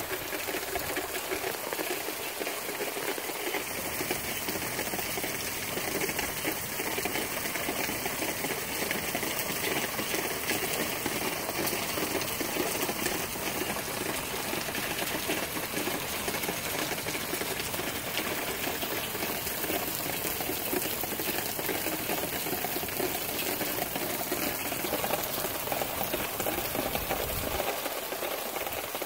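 Strong tropical-storm wind blowing, a steady rushing hiss.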